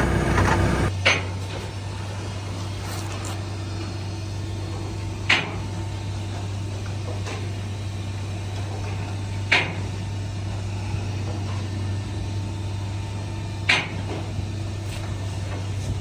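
A vehicle engine idles for about the first second and then stops. After that, the baler's steel-slat conveyor drive hums steadily, with a sharp metallic clank about every four seconds as the chain belt is fed around its sprockets.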